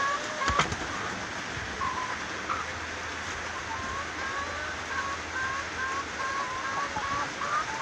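Broody hen on her nest giving soft, short, slightly rising calls about three times a second, over a steady hiss.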